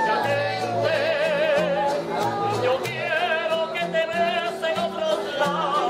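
Cuban street music: a high melody with wide vibrato over plucked strings and a bass line of short, separate low notes.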